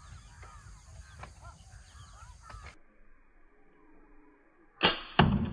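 Birds chirping faintly in the background, then near the end two sharp cracks about half a second apart: a suppressed FX Impact M3 PCP air rifle being fired at a target.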